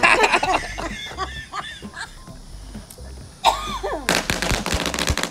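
People's voices and laughter, then about four seconds in a pack of firecrackers starts going off in a fast, dense run of pops.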